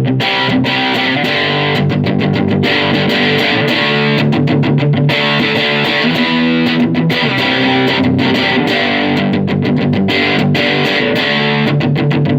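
Electric guitar, a Jackson Dinky with active EMG pickups, played through a tweed 4x10 tube amp with 5881 power tubes, on channel one with the volume at about six and the master at about two. Chords and picked notes ring on with frequent sharp pick attacks.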